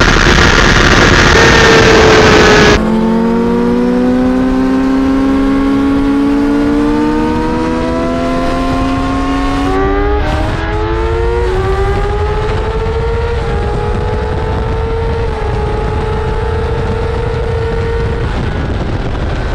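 Yamaha R6 sport bike's inline-four engine pulling at highway speed over heavy wind noise, its pitch climbing slowly, then dropping and climbing again about ten seconds in as the rider shifts up, before holding nearly steady.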